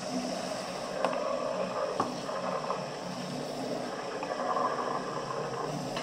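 Espresso-making equipment running with a steady noise, with faint clicks about one and two seconds in.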